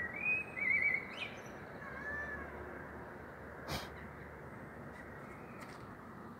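Siamese cat meowing in a few short, wavering calls over the first two seconds, with one sharp click a little before the four-second mark.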